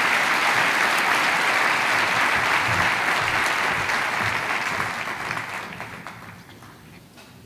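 Audience applauding, steady at first, then dying away over the last two seconds or so.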